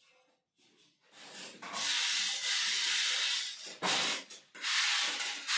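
Crushed stone aggregate rattling and scraping over the perforated plates of stacked galvanized-iron test sieves as they are shaken by hand. It starts about a second and a half in, breaks off briefly around four seconds, then goes on.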